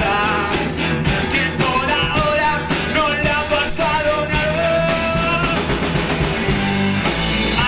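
Live rock band playing an instrumental passage on electric guitars and drums, with a long held note about four seconds in.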